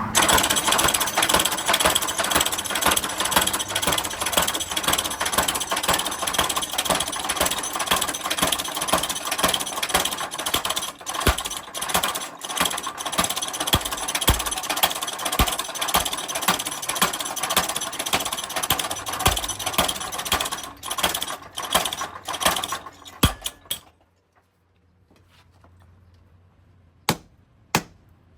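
A workshop machine running with a dense, rattling mechanical clatter that stops suddenly about 23 seconds in, followed by two sharp metal strikes near the end.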